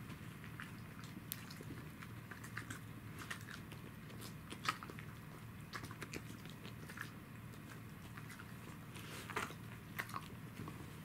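Pembroke Welsh corgis eating small bread treats: scattered small clicks and crunches of mouths and teeth, the loudest about a third of the way in and again near the end, over a low steady background hum.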